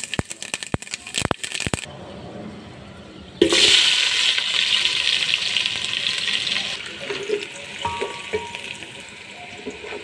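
Whole spices crackling in hot oil in an aluminium pot, with sharp pops over the first two seconds. About three and a half seconds in, sliced onions go into the oil and it breaks into a loud sizzle that eases off a few seconds later.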